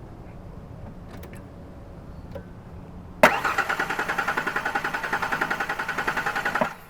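1993 Ford Ranger's starter cranking the engine with a rapid, even pulsing, starting suddenly about three seconds in and cutting off after about three and a half seconds. The start is going badly after an intake manifold gasket job, which the owner puts down to a vacuum line hooked up wrong.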